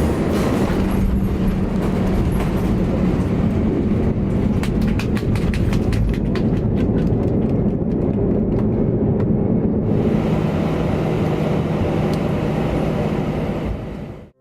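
Steady rumble of a moving vehicle with a low hum, which cuts off abruptly at the end.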